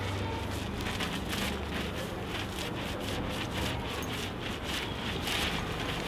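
Paint rollers on long extension poles being worked over a rough concrete wall, a rapid scratchy rasping of several strokes a second that grows louder near the end.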